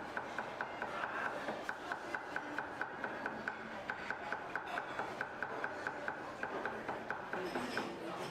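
Fast, even knife strikes on a wooden cutting board, about five a second, as food is chopped.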